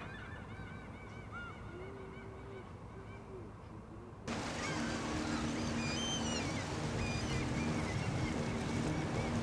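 Gulls calling over and over with short arched cries. About four seconds in, the sound jumps louder, and a steady low engine hum runs under the continuing gull calls.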